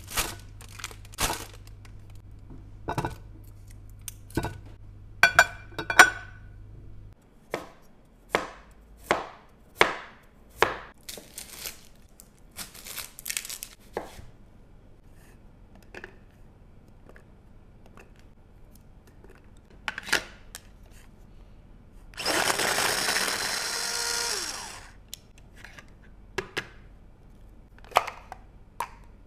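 Knife chopping food on a cutting board: irregular sharp knocks spaced about half a second to a second apart. A low hum stops about a quarter of the way through. Near the end a loud rushing hiss lasts about two and a half seconds, then fades out.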